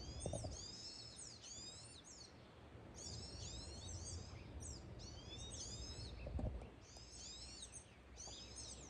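Songbirds singing: repeated phrases of quick, high, downward-sliding chirps, faint, over a low rumble, with a brief thump about six seconds in.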